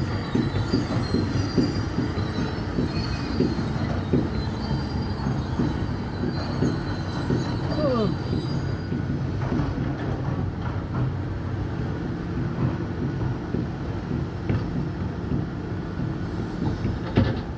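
Caterpillar excavator working: a steady low engine rumble with continual clanking and squealing of metal, and a short squeal that falls in pitch about eight seconds in.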